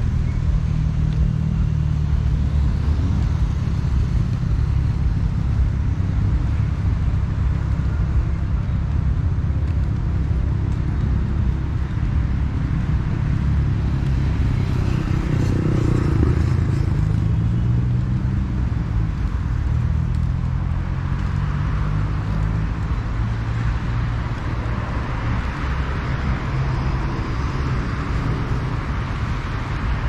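Road traffic: motor vehicle engines running and passing, with a low engine hum that rises and falls in pitch about halfway through and tyre noise swelling near the end.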